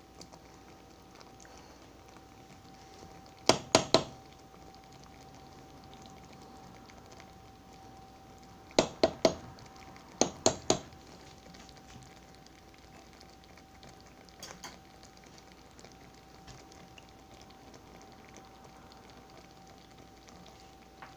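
A skillet of chicken in a creamy soup-and-sour-cream sauce simmering faintly, over a steady faint hum. Three quick sets of three sharp knocks, about four, nine and ten and a half seconds in, are the loudest sounds.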